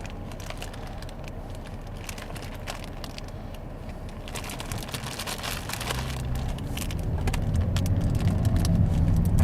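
Plastic candy packet crinkling as it is handled and opened, with a low rumble that grows louder over the second half.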